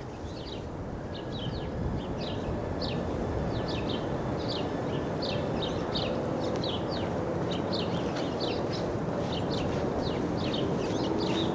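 Wild birds chirping: many short, high, downward-sweeping notes, a few each second, over a steady low rush of outdoor background noise.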